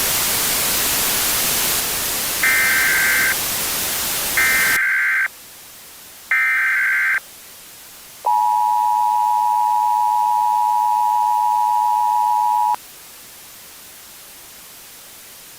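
Emergency Alert System tones: loud static hiss for the first few seconds, while three short bursts of SAME header data tones sound, each under a second. Then comes the EAS two-tone attention signal, a steady dual tone near 853 and 960 Hz, held for about four and a half seconds before it cuts off.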